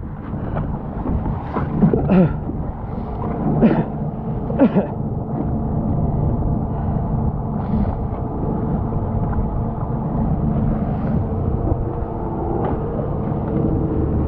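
A fishing boat's engine running steadily, with a few short higher-pitched sounds in the first five seconds.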